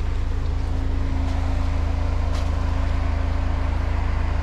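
Jeep Wrangler running steadily, a constant low engine hum with a steady even pitch and a couple of faint clicks.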